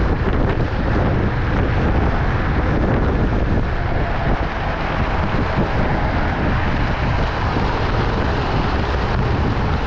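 Steady wind rushing over the microphone and road noise from riding a Wolf King GT Pro dual-motor electric scooter at traffic speed.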